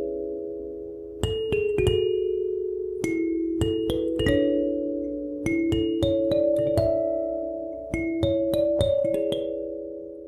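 Kalimba music: a slow melody of plucked metal tines, with each note ringing on under the next. The last notes ring out and begin to fade near the end.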